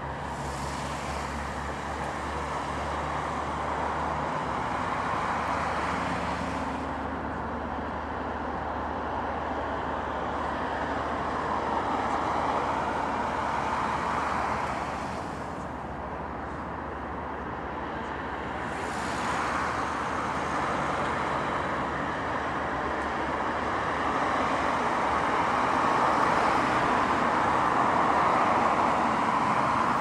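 Road traffic going by: a hiss of tyres and engines that swells and fades several times as vehicles pass, with a low engine hum in the first few seconds.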